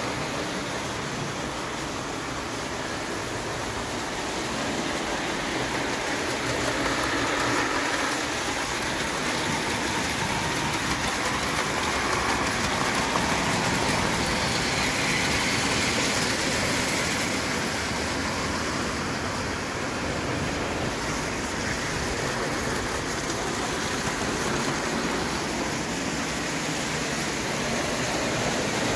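Two spirit-fired Falk live-steam locomotives double-heading a tinplate O gauge freight train on metal track: a steady running noise that grows louder in the middle as the train passes close.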